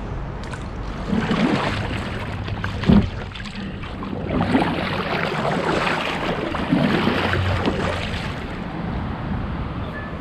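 Water splashing and sloshing around a kayak, with wind on the microphone, swelling and fading a few times; a single sharp knock about three seconds in.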